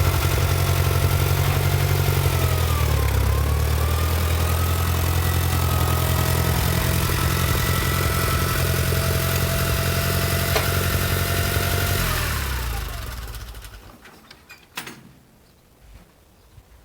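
Loader's engine running steadily, its pitch dipping briefly about three seconds in, then shut off about twelve seconds in and winding down to a stop. A single sharp knock follows near the end.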